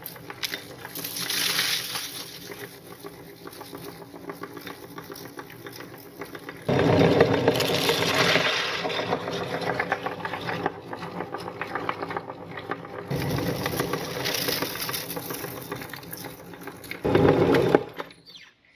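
Electric meat grinder's motor running steadily while grinding Chocos chocolate cereal. It grows much louder and fuller three times for a few seconds each as the grinder is loaded, then stops shortly before the end.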